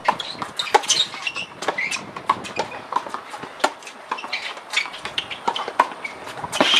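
Tennis balls being struck by rackets and bouncing on hard courts, from several courts at once: irregular sharp pops, with faint high chirps among them.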